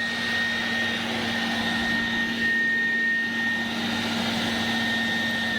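Handheld electric air blower/vacuum running at its top speed setting, a loud steady high whine over a deeper hum; it is switched off at the very end and the whine starts to fall.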